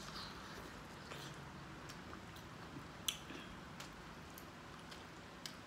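A person biting and chewing corn on the cob close to the microphone: faint wet mouth sounds with scattered small clicks, the sharpest about three seconds in.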